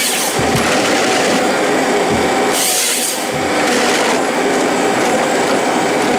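Forestry harvester working a felled tree trunk, with the feed rollers and delimbing knives driving the log through the head: a loud, dense clatter of machinery and wood, with a few heavy low thumps.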